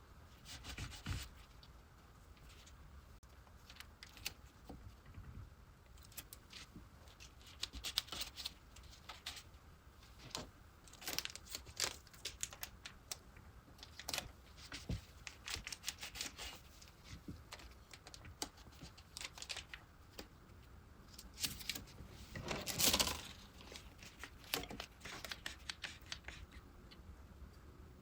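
Hands working at a wooden chair during a glue-up: scattered light clicks, taps and rustles at an irregular pace, with a longer, louder rustle near the end.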